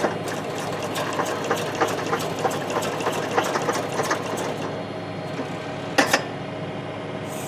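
Tractor engine running steadily, driving the PTO backhoe's hydraulics, with a rapid clatter of knocks from the backhoe working for the first four seconds or so. Two sharp clanks come about six seconds in.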